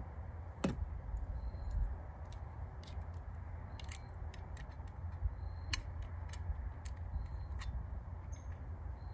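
Irregular small metallic clicks and rattles from a hand-held manual staple gun being fiddled with, its parts being worked by hand rather than fired, over a low steady rumble.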